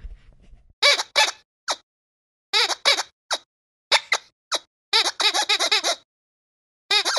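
Squeaky dog toy squeezed over and over in short groups of squeaks: a few single squeaks, then a quick run of about eight squeaks about five seconds in, and another run starting near the end. Each squeak is pitched and slides up and down.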